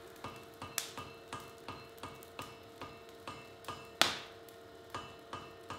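Quick, light hand-hammer blows on red-hot wrought iron on an anvil, about four a second, rounding off a forged collar. Two heavier blows land about a second in and about four seconds in.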